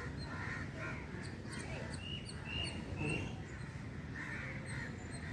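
Crows cawing, a string of short calls, with three quick caws about half a second apart near the middle.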